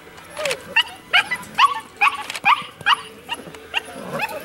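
A five-week-old puppy yapping in a quick string of short, high-pitched yips, about two or three a second.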